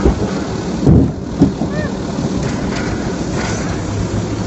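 Automated side-loader garbage truck's engine and hydraulics running as its grabber arm dumps a wheeled cart and lowers it back down, with a few loud thumps about a second in as the cart bangs at the top of the lift.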